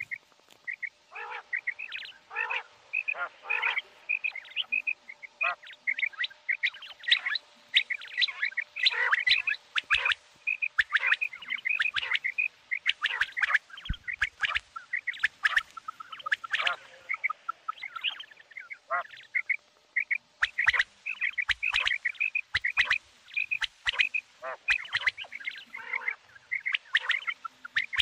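Common quail calling: a dense, continuous run of short, sharp chirping calls, some overlapping, with occasional click-like notes.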